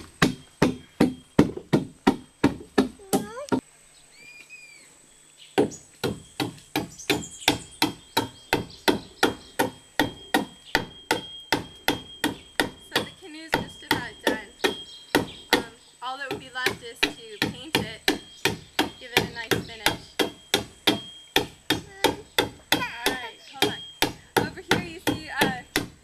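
Hammer blows on wood, quick and regular at about two to three a second, with one pause of about two seconds near the start: small nails being hammered into the planks of a dugout canoe under repair.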